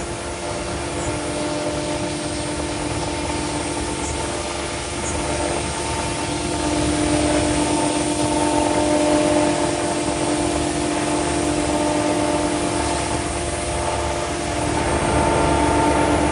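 CNC router spindle and dust extraction running steadily with a constant hum over a hiss, as a V-groove bit cuts an aluminium composite panel; it grows a little louder about seven seconds in.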